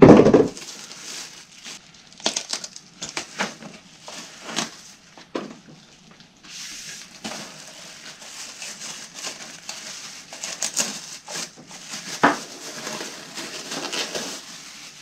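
Packaging being handled as a small space heater is unboxed: crinkling and rustling with scattered irregular clicks and knocks, and one sharper knock about twelve seconds in.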